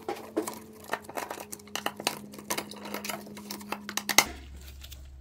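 Irregular clicks and light clinks of a hex key working in Allen-head bolts and of a hard plastic panel being handled, over a steady low hum. The clicking stops about four seconds in.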